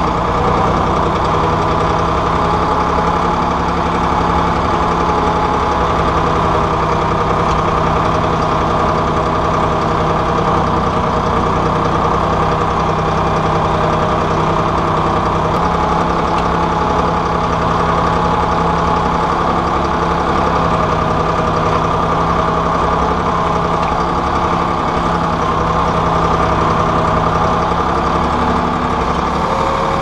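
County tractor's diesel engine running steadily under load while pulling a plough, heard from inside the cab.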